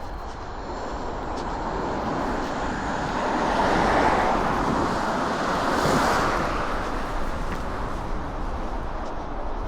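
A car passing by on the road: tyre and engine noise swelling over a few seconds, loudest around the middle, then fading away, over a steady background of wind.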